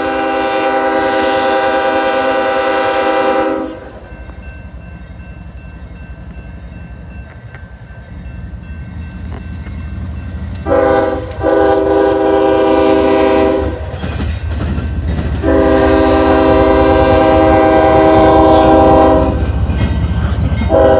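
CSX locomotive air horn sounding a chord of several tones: one long blast, then after a pause of several seconds a short blast and two long blasts, with another starting just at the end. Underneath, the train's low rumble grows steadily louder as it approaches.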